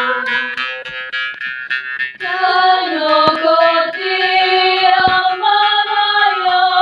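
Voices singing a traditional Dusun gonding chant in long held notes that glide slowly in pitch, breaking off briefly about two seconds in before resuming, with two short knocks in the middle.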